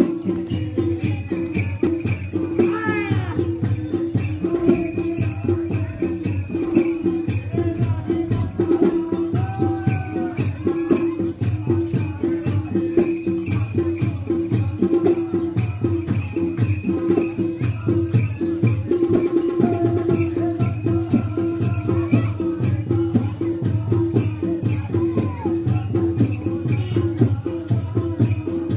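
Live folk dance music: fast, even rhythmic percussion over a steady droning note that runs without a break.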